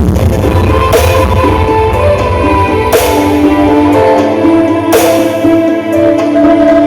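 DJ dance track with a plucked melody, played loud through a large carnival sound system. Heavy bass comes in at the start, with a sharp hit about every two seconds.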